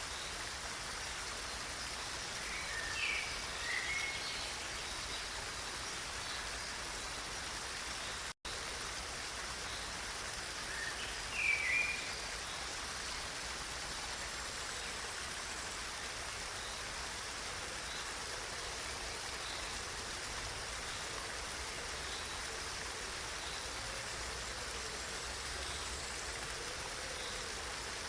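Steady, even rush of running water. A bird gives short chirps twice, a few seconds in and again about eleven seconds in, and the sound drops out for an instant in between.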